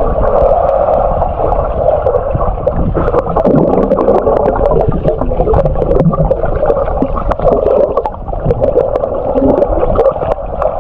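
Muffled underwater sound of pool water picked up by a submerged GoPro: a steady churning rush with many small clicks and knocks, as heard with the camera below the surface near a swimmer.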